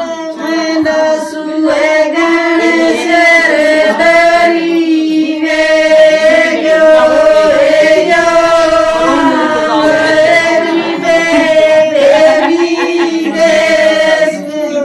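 A group of women singing a traditional wedding folk song together in long, held notes.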